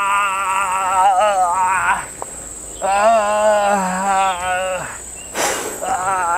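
A man wailing and moaning in pain in high, wavering cries. They come in three stretches, broken by short pauses about two and five seconds in.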